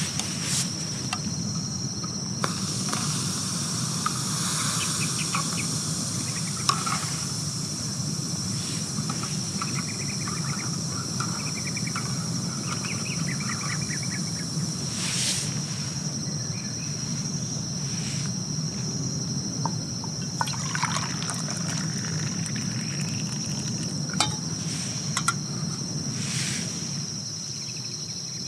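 Crickets trilling steadily as a constant high tone. Over it come scattered clicks and a liquid trickling or pouring sound, mostly in the first half.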